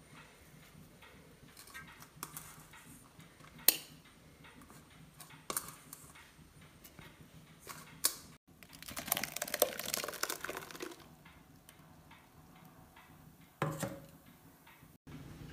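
Quiet kitchen handling noises: scattered sharp clicks and taps of utensils and containers, about two seconds of crackly rustling a little past the middle, and a short knock near the end.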